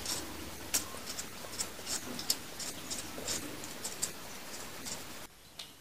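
Freshwater mussel-shell peeler scraping the skin off a raw potato: quick, irregular scrapes and clicks that stop suddenly near the end.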